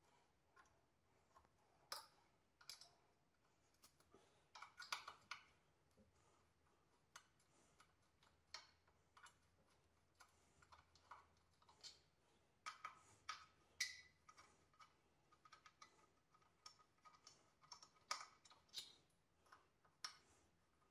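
Faint, irregular clicks and light knocks of a motorcycle headlight and its metal shell being handled and fitted by hand.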